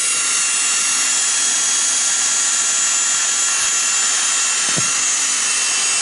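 Electric drill running at a steady full speed with a high whine, boring a quarter-inch hole through the rubber tread of a dry-rotted ATV tire.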